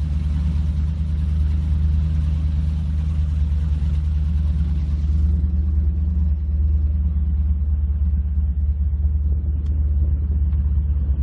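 Twin engines of a Fountain Lightning powerboat running with a steady low rumble. A hiss over the rumble drops away abruptly about halfway through.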